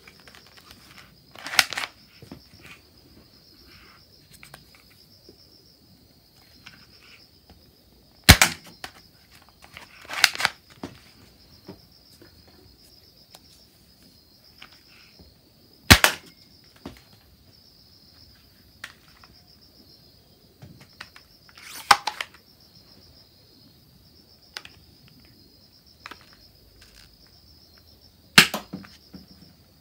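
Spring-powered toy dart guns, a suction-dart pump shotgun and a toy M4A1, firing at targets: about six sharp snaps spread over the half minute, some followed by a second shorter clack. Small clicks of loading and handling come between the shots.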